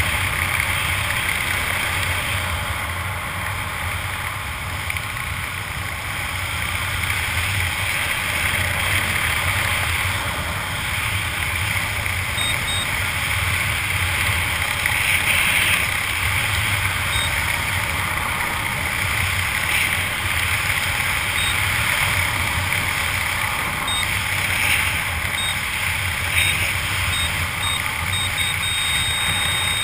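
Steady rush of wind over an action camera's microphone during a parachute descent. From about halfway through, short high electronic beeps sound, coming more often toward the end and running into one held tone in the last second.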